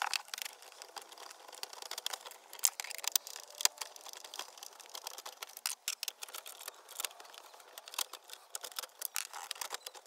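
Irregular small clicks and scrapes of a stubby Phillips screwdriver turning out screws from the plastic top-of-dash storage compartment, with light plastic rattles as the tool shifts between screws.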